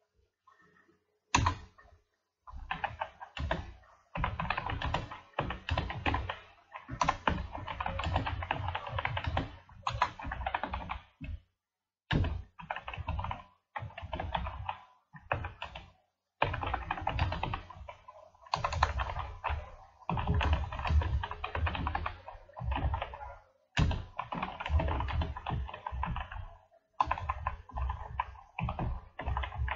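Computer keyboard being typed on in quick runs of keystrokes, with short pauses between runs; the typing starts about a second and a half in.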